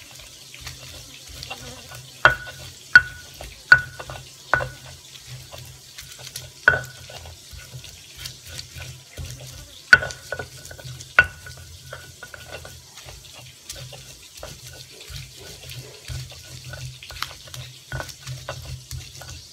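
Stone pestle grinding chilies and shallots in a stone mortar (ulekan and cobek) for sambal terasi: a continuous wet scraping and crushing, broken by sharp stone-on-stone knocks with a short ring. There are several knocks a few seconds in, another around seven seconds, and two more around ten and eleven seconds.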